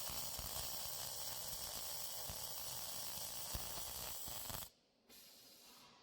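MIG welding arc on an automatic tank longitudinal-seam welder, a steady crackling hiss with a few sharp pops, cutting off suddenly near the end.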